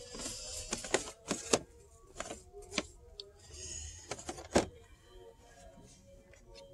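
Carded action figures in plastic blister packs being handled on a metal store shelf: a string of sharp plastic clicks and crinkles, loudest about a second and a half in and again about four and a half seconds in.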